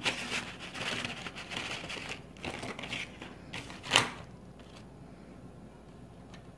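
Crinkling and rustling as a set of Faber-Castell coloured pencils is handled, with one sharp clack about four seconds in, then only faint handling noise.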